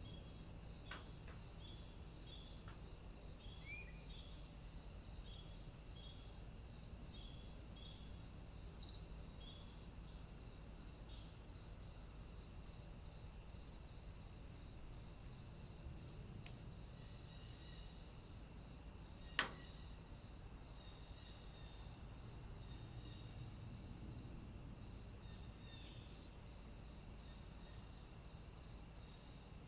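Crickets chirring steadily with a regular pulsing chirp. A single sharp click about two-thirds of the way through stands out as the loudest sound.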